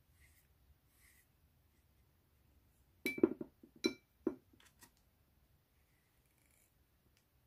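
A paintbrush rattled and tapped against a glass water jar: a quick cluster of clinks with a short ring about three seconds in, then a few single taps over the next two seconds.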